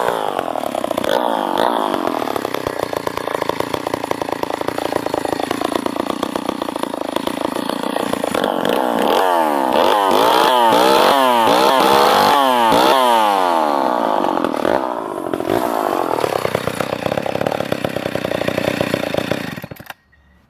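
Vintage Lombard two-stroke chainsaw running and cutting wood. Its engine pitch swings up and down several times in the middle as the throttle is worked through the cut, then the engine is shut off and cuts out suddenly near the end.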